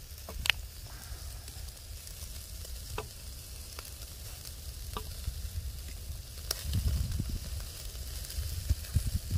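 Pork ribs sizzling over a charcoal grill in a steady hiss, with a few sharp clicks of metal tongs as pieces are turned. A low rumble swells now and then in the second half.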